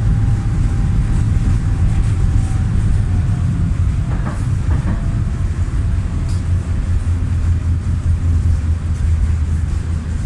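Belkommunmash BKM-60102 low-floor tram heard from inside the car while running: a steady low rumble with a faint whine that slowly falls in pitch, and a couple of light clicks about four to five seconds in.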